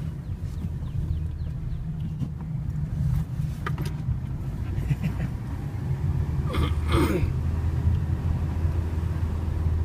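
Fiat Panda driving: a steady low engine and road rumble that grows a little stronger about six and a half seconds in, with a short falling sound near seven seconds.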